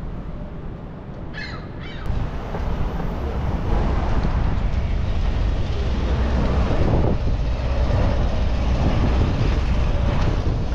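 Wind buffeting the microphone as a steady low rumble, which comes in about two seconds in and grows louder near four seconds. A short, harsh bird call sounds just before it.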